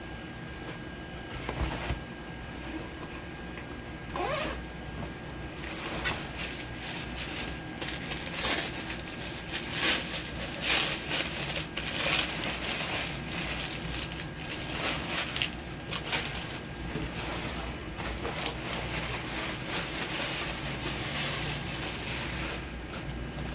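Crinkly paper wrapping being rustled, pulled and torn away by hand to unwrap a boxed item, in repeated irregular bursts that are loudest about halfway through.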